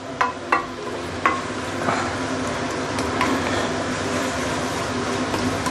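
Yellow noodles and shredded vegetables sizzling in a stainless steel pan on high heat while being tossed with a wooden spatula, with a few light knocks of the spatula against the pan in the first few seconds.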